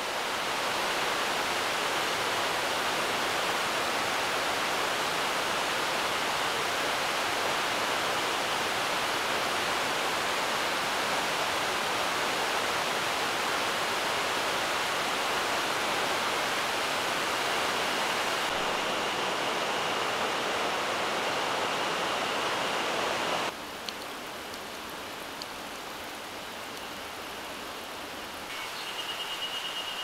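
Steady rush of a mountain stream cascading over rocks. A little over three-quarters of the way through it cuts abruptly to a quieter, more distant water hiss, and near the end a steady high-pitched tone joins in.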